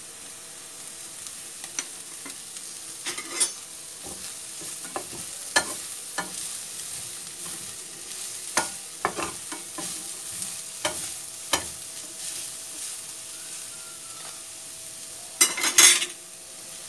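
Chicken and vegetables sizzling in a frying pan on a gas stove while a plastic spatula stirs them, with scattered clicks and knocks of the spatula against the pan. There is a louder clatter near the end.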